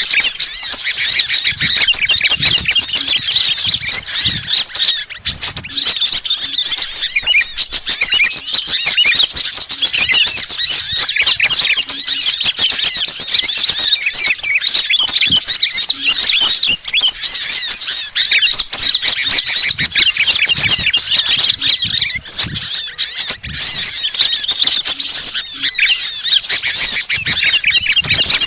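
Loud, unbroken twittering of many small songbirds, with fast, high chirps and short whistled slides crowding over one another. It is a mixed bird-lure recording of sunbird, bulbul and other small-bird calls, played to draw birds in.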